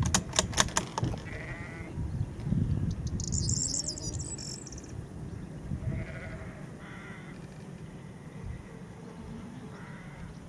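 Sheep bleating a few times, with a cluster of sharp clicks in the first second and a short high chirping a few seconds in, over a steady low rumble.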